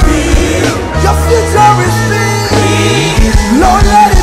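Live gospel band music: an electric bass guitar plays held notes that step between pitches and slide up about two and a half seconds in, over a drum kit and singing.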